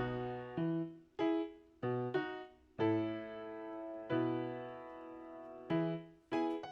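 Background music on a keyboard: a light tune of separate notes and chords, each struck and then fading.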